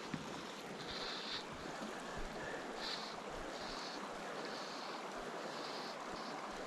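Small river flowing, a steady rushing of water, with short higher-pitched hisses recurring about once a second.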